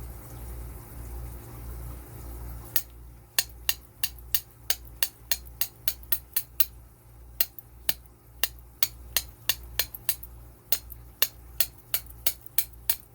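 Bump key being struck over and over in an Abus 8145 padlock, about three sharp metallic taps a second, starting about three seconds in, over a steady low hum.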